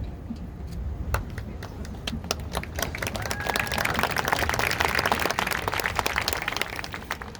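Crowd in the stands clapping, building to its fullest around the middle and thinning out near the end, with a few voices or a whistle mixed in.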